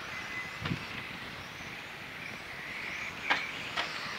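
Electric 1/10-scale RC touring cars running on an asphalt track: a thin whine from their brushless motors and drivetrains that comes and goes as the cars pass, with a few sharp clicks, the loudest about three seconds in.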